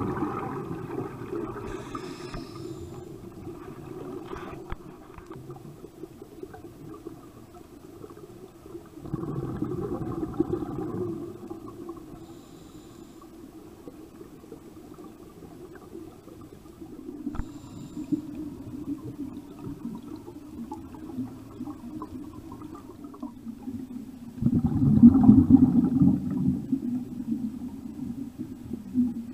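Muffled underwater rumble of scuba regulator exhaust: bursts of bubbles gurgling as the divers breathe out, one at the start, one about ten seconds in and the loudest near the end.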